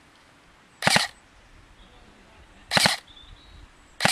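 Airsoft gun firing three short bursts about two seconds apart, each a quick rattle of a few shots.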